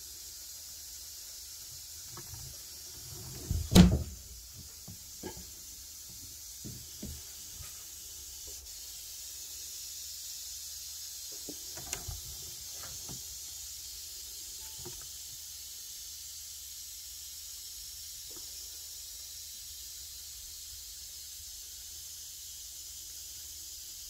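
Knocks and rustling in a cobra's enclosure, over a steady faint hiss. There is one loud knock about four seconds in, a few lighter knocks and rustles in the wood-shaving bedding, and a quick scuffle about twelve seconds in as the cobra strikes at its prey.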